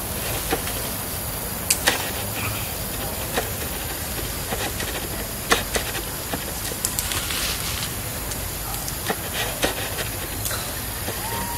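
Steady outdoor hiss with scattered sharp snaps and rustles as long-tailed macaques scramble through grass and climb a thin woody vine.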